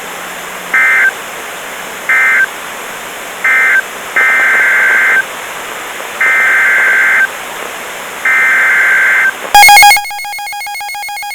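NOAA Weather Radio SAME data bursts, a buzzy two-pitch digital warble: three short bursts, the end-of-message code closing the test, then three longer bursts carrying the header of the new warning. A short loud burst of noise follows, then a steady alert tone starts near the end.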